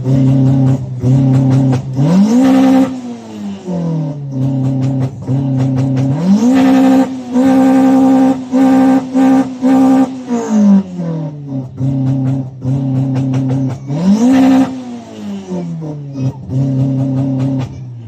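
A tuned Toyota car engine revved hard while standing still, heard from inside the cabin. It is held steady against a rev limiter, stuttering at the cut, and three times climbs sharply to a much higher limiter before dropping back: 'ham bams'.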